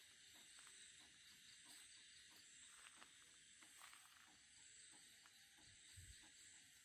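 Near silence: a faint steady hiss with a few faint clicks.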